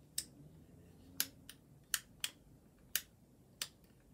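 A series of six sharp, light clicks at irregular spacing, about half a second to a second apart, over faint room noise.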